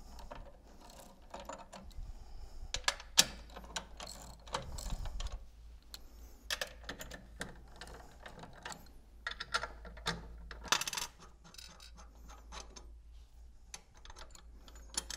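Steel nuts being undone and spun off the motor-adapter studs of a stainless vertical multistage pump: irregular small metallic clicks and clinks of tool and nuts against the stud threads and cast-iron flange.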